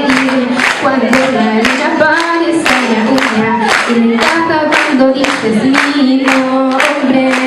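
A girl singing into a handheld microphone, with a steady clap beat of about two to three claps a second under the voice.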